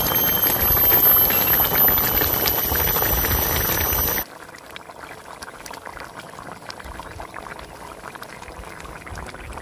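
Fish curry with ridge gourd and potato bubbling at a boil in the pan. It is loud for about four seconds, then drops suddenly to softer bubbling.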